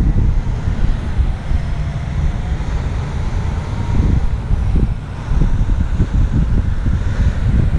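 Wind buffeting the microphone: a gusty, uneven low rumble, with faint distant road traffic behind it.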